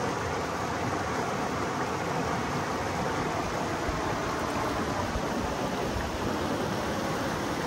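Steady rush of river rapids: an even hiss of running water.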